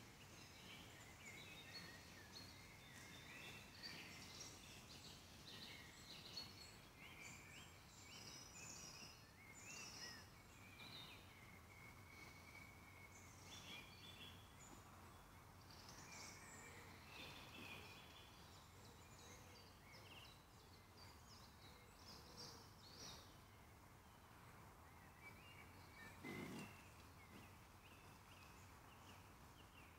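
Faint woodland birdsong: many short chirps and warbled phrases from birds, over a steady low background noise. A brief low thump near the end.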